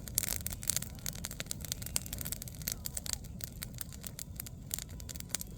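Campfire of burning wood crackling: a dense, irregular run of sharp pops and snaps over a steady low rumble.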